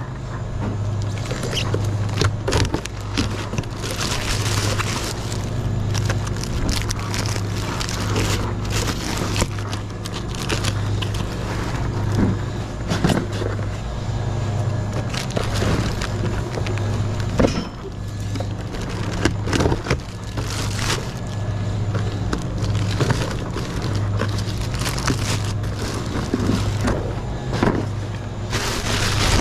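Loaded hand truck being wheeled across a store floor: a steady low rumble from its wheels that swells about once a second, with scattered clicks and rattles from the metal frame and the stacked drink cases.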